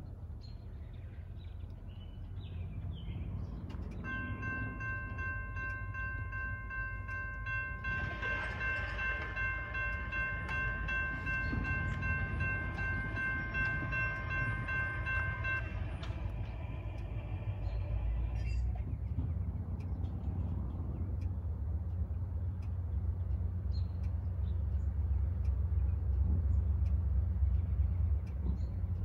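Approaching diesel locomotive's low engine rumble, growing louder throughout. Its multi-chime air horn sounds one long held chord starting about four seconds in, loudest in the middle, fading out about two-thirds of the way through.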